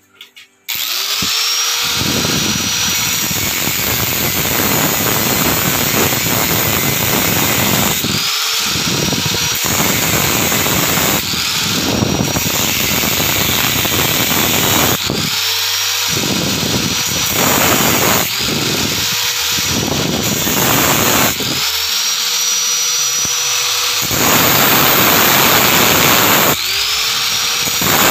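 Handheld angle grinder cutting a hole in a sliding window screen frame for its screen roller. It is switched on again and again in short runs, each start a rising whine that levels off, over the grinding noise of the disc on the frame.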